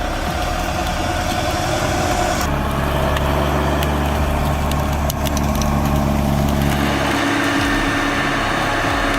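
A heavy vehicle's engine running at a steady speed. The sound changes abruptly about two and a half seconds in and again about seven seconds in, with a few light clicks in between.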